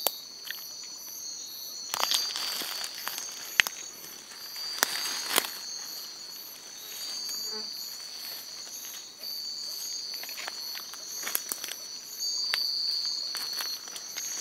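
Night insects chirring in steady high-pitched tones, with a higher chirp pulsing about twice a second. Over it, dry leaf litter rustles and a few sharp cracks like snapping twigs come through, loudest about three and a half and five seconds in, as someone moves about in the undergrowth.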